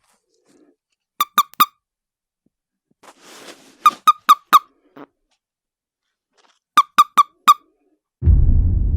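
Common toad squeaking in short high chirps that come in quick runs of three or four, with a breathy hiss between two of the runs. Near the end a loud, low, rasping sound sets in.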